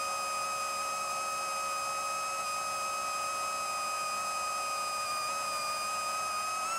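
FPV quadcopter's brushless motors (Racerstar AirB 2514 1498KV) spinning 7-inch HQProp 7040 propellers in cruise flight, heard from onboard as a steady high whine with several overtones over a hiss. The pitch rises a little near the end.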